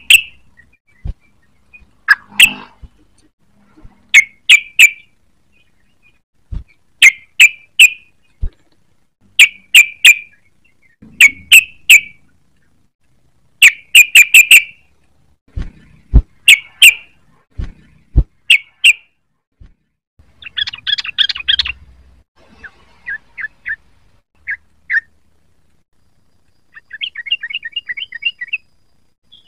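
Sooty-headed bulbul calls: short sharp notes in clusters of two to four, repeated every second or two, then about two-thirds of the way in a fast chattering burst. A few single notes follow, and another rapid trill comes near the end.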